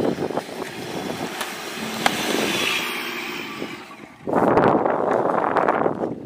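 Maruti Suzuki Vitara Brezza SUV driving through loose desert sand, its engine and tyres running steadily. About four seconds in, a louder rushing noise sets in as the wheels spin and throw sand, the car bogging down in the sand.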